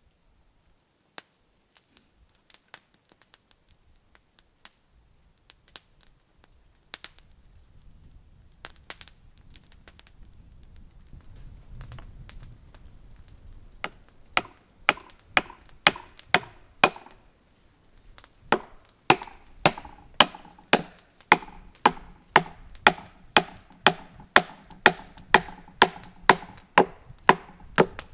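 Hand tool chopping into wood: scattered light knocks at first, then from about halfway a steady run of sharp strikes, about two a second, each with a short ring from the wood.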